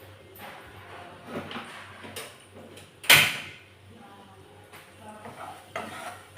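A person sneezes once, loudly and sharply, about three seconds in, set off by the pungent smell of garlic frying in the pan. Faint kitchen handling noises sit around it.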